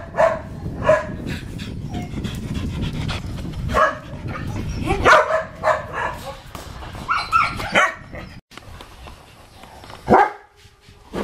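Dog barking repeatedly, about two short barks a second at first, then in scattered bouts, with a single bark near the end, over a low rumble in the first half.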